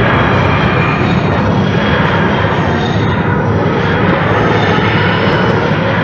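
TARDIS dematerialization sound effect: a loud, dense, continuous drone that slowly swells and eases, with no break.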